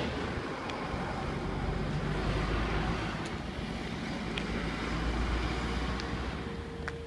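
A motor vehicle going past, a low rumble and road noise that swells through the middle and fades near the end.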